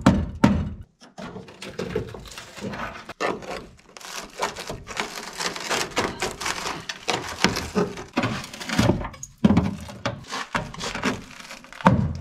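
A couple of hammer blows on the rusted steel rear wheel arch of a Nissan Skyline R33, then a hand tool scraping, prying and knocking at the rotten sheet metal and the dirt packed behind it, with uneven rattling and a few heavier knocks near the end.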